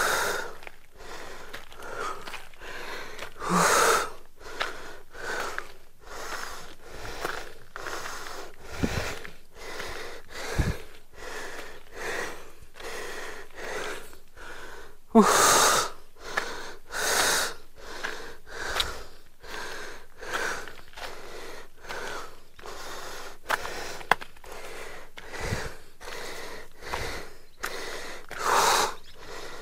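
A man panting hard and fast close to the microphone, about one breath a second, with a few louder gasping breaths. He is out of breath from climbing a steep hill in the summer heat.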